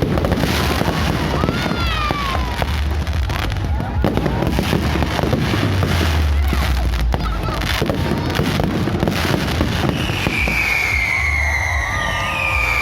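Fireworks display: a dense run of bangs and crackles over a low rumble. From about ten seconds in, a high whistling tone glides slowly down.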